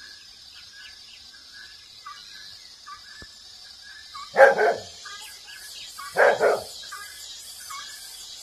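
A dog barking: a quick double bark about four seconds in, and another about two seconds later.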